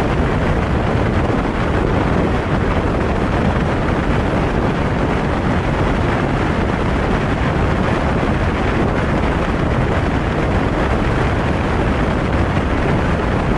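Loud, steady rush of wind and road noise from a car driving at speed, with wind buffeting the microphone.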